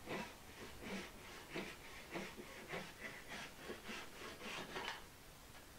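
Hand rip saw cutting along the grain of a wooden board: a steady run of rasping saw strokes, about two a second, that stop near the end.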